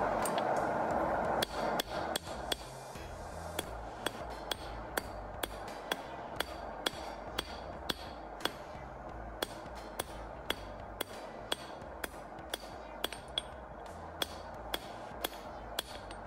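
Hand hammer striking red-hot sword steel on an anvil: sharp ringing blows, about two a second. A loud rushing noise fills the first second and a half, then stops.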